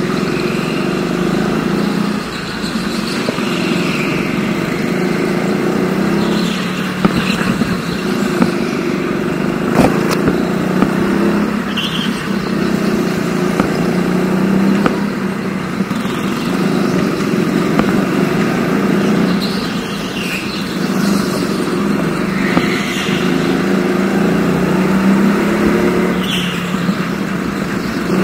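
Rental go-kart engine running hard around a track, its pitch rising and falling repeatedly as it accelerates and lifts off, with brief high squeals now and then.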